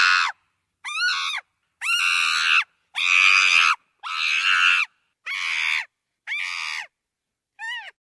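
Chimpanzee screaming: a series of about eight harsh screams, each half a second to nearly a second long, separated by short silences. Two of them, about a second in and near the end, are shorter calls that rise and fall in pitch.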